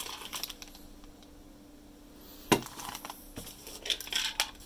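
Model shipping containers in plastic bags being handled and set down on a table: one sharp tap about halfway through, then light crinkling and small taps of the bags near the end.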